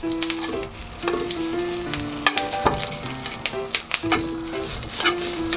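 Whole corn cobs sizzling in a lightly oiled frying pan over medium heat as the kernels brown and char, with frequent sharp pops and clicks while metal tongs turn the cobs.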